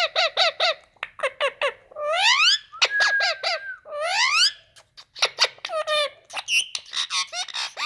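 Ring-necked parakeet calling in rapid short, high-pitched notes, with rising whistled glides about two and four seconds in and a brief steady whistle between them.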